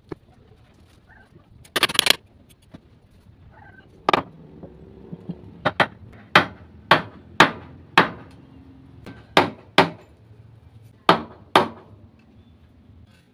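Hammer blows on a wooden bench frame, fitting a curved branch armrest into place. There is a short rattle about two seconds in, then about eleven sharp strikes at uneven intervals, some coming in quick pairs.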